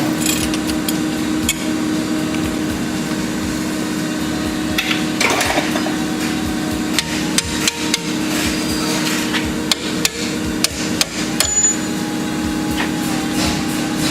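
A small hammer striking steel strut-to-knuckle bolts, tapping them back out of their holes, with irregular strikes in small clusters.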